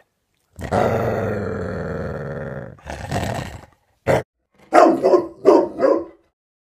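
A dog growling in one long snarl, then a shorter rough growl and a quick run of about five sharp barks near the end.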